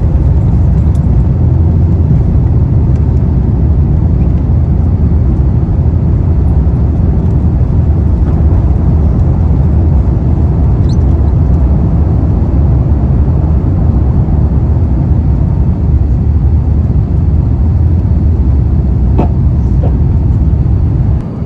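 Airbus A350-900 cabin noise: a loud, steady low rumble from the engines and airframe, heard from a passenger seat. The rumble drops suddenly just before the end.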